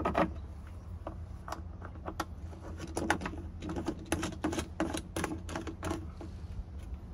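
Irregular clicks and light knocks of black plastic star-knob screws being hand-turned into the sides of wooden plywood bed boxes, joining the boxes together. The clicking comes thickest in the middle, over a low steady rumble.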